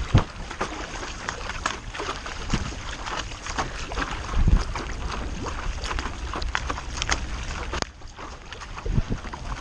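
Paddle-board paddle splashing and dripping on the lake, with many sharp taps of rain on the lake and gear, and wind buffeting the microphone. A couple of heavier low thuds come about half a second and four and a half seconds in.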